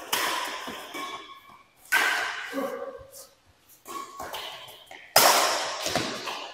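Badminton rackets striking a shuttlecock in a rally: about four sharp hits one to two seconds apart, each ringing on in the hall's echo, the loudest about five seconds in.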